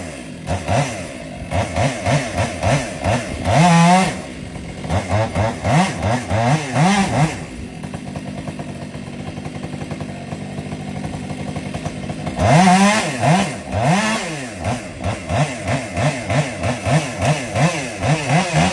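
Chainsaw engine revved in quick throttle blips, its pitch rising and falling again and again; it settles into a steadier, quieter run for a few seconds midway, then revs hard and blips on again.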